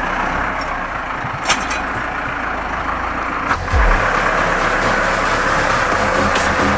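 Same Explorer 90 tractor's diesel engine running steadily while its front loader works, getting a little louder about three and a half seconds in.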